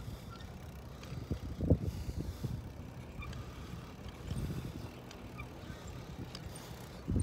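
Bicycle riding over a concrete pier: a steady low rumble of the ride with a few knocks and rattles, the loudest about two seconds in and again a little past halfway.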